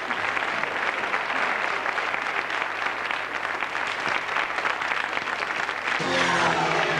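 Studio audience applauding; about six seconds in, the programme's theme music starts over the clapping.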